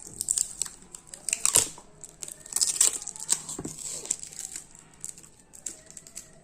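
Plastic packaging crinkling and tearing as it is handled and opened, a run of irregular crackles and sharp clicks.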